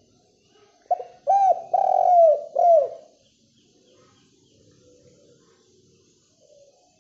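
Spotted dove cooing one phrase of about four low notes, each rising and falling, the third drawn out longest.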